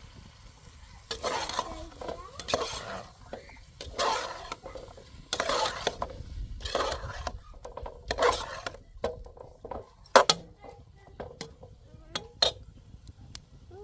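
Repeated scraping strokes, about one every second or so, followed in the last few seconds by a string of sharp clicks and clinks.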